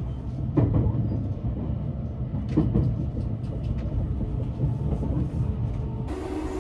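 Cabin running noise of a JR West 683 series limited express train at speed: a steady low rumble with a few sharp clatters from the wheels on the track. About six seconds in, the sound changes abruptly to a steadier hum.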